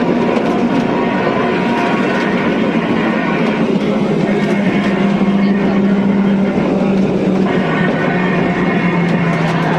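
Snaefell Mountain Railway electric tramcar running along the track, heard from inside the driver's cab: a steady rattle and rumble of the car and running gear with a low hum that holds steady, then drops a little in pitch near the end.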